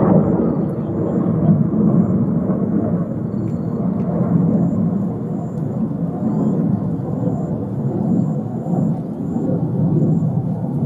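Ballpark ambience: a steady low rumble and murmur with no distinct hits or calls.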